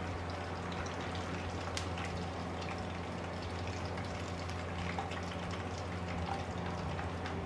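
Hot oil sizzling in a wok, with fine, irregular crackles and pops, as fried chicken wings drain in a wire strainer held just above it.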